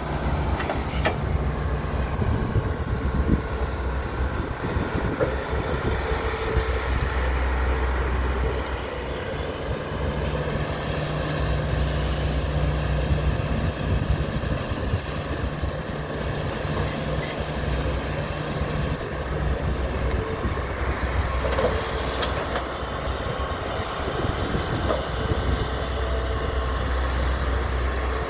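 Hitachi tracked excavator's diesel engine running steadily while it digs and swings loads of wet mud, its note getting stronger for a few seconds midway, with a few short knocks.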